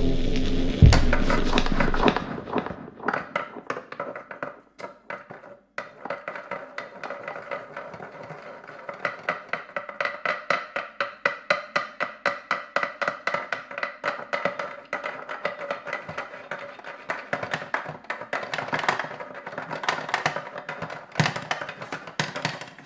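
Rhythmic tapping on a hard, resonant object, about three taps a second, each with a brief ringing tone. It follows a louder, deeper sound that stops about two seconds in.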